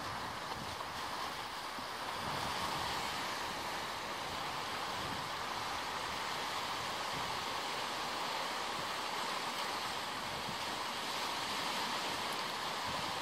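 Sea swell washing and churning around rocks below a cliff: a steady rush of surf that swells and eases slightly.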